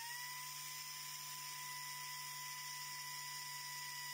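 4-inch pneumatic angle grinder running free at full throttle, about 8,400 RPM, just after spinning up. It makes a steady high whine over a hiss, short of its rated 10,000 RPM on the available air.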